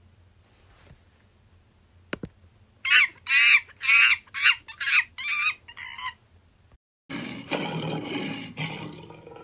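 A small monkey, apparently a capuchin, giving a run of about six high, squeaky calls with a wavering pitch, about two a second. A few seconds in, a rougher, lower growling sound starts and tails off near the end.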